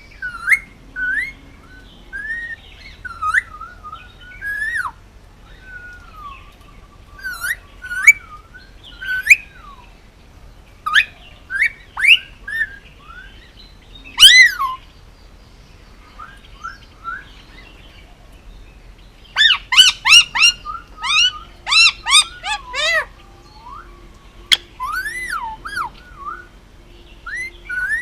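Male Indian ringneck parakeet calling: a string of short chirps and whistles that glide up and down, with a quick run of loud rapid calls about two-thirds of the way in.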